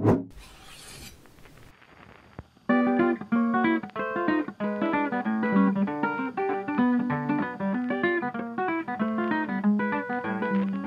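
Background music: a plucked acoustic guitar tune that starts about three seconds in and plays on steadily. Before it, the tail of an intro sound effect fades out.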